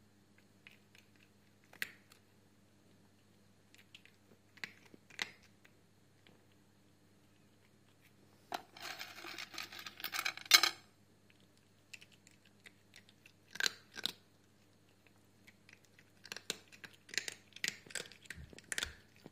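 Close-miked cat nuzzling and mouthing at a hand: sparse small clicks and mouth sounds, with a scratchy rustle lasting about two seconds near the middle, the loudest part.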